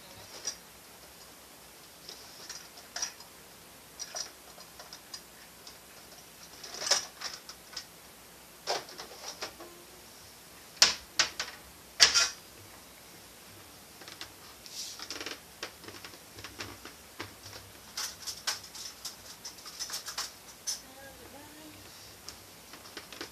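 Kitchen clatter: scattered clinks and knocks of dishes and utensils being handled, with two sharp clacks about a second apart midway through.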